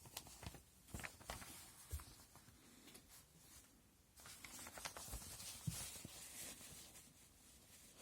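Plastic model kit box and packaging being handled: scattered light clicks and taps, then a longer rustle from about four seconds in until past six.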